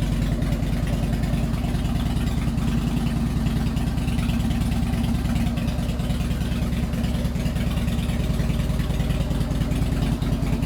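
Harley-Davidson FXSTSI Springer's fuel-injected V-twin idling steadily through Samson Big Guns upswept slash-cut exhaust pipes, a super deep growl.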